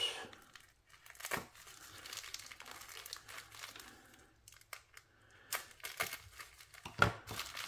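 Plastic bubble wrap crinkling as it is slit with a knife blade and pulled open, with a few sharp crackles along the way.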